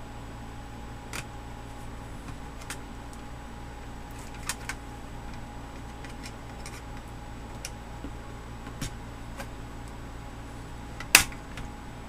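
Plastic snap-fit clips of a Toshiba Satellite C855D laptop's bottom cover being pried loose with a flathead screwdriver. Scattered small clicks, then one loud sharp snap near the end as the cover comes free, over a steady background hum.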